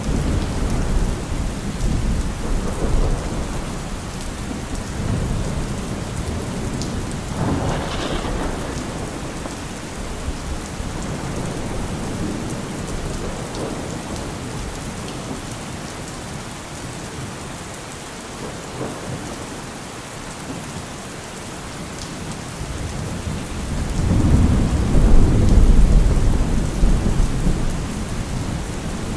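Thunderstorm: steady rain falling under rolling thunder. A sharper thunderclap comes about eight seconds in. A long, low rumble of thunder, the loudest part, swells up a few seconds before the end.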